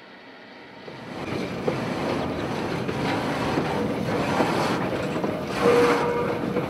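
Steam locomotive hissing as steam vents around its cylinders and wheels, with the train running; the noise swells about a second in, with a few knocks and a short steady tone near the end.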